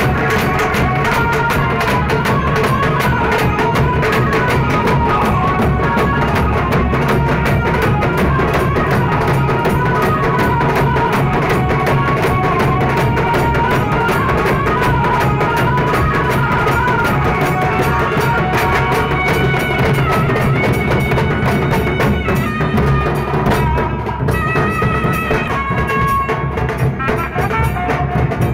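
Loud, dense dhol drumming with rapid, unbroken strokes, with a pitched melody line above it.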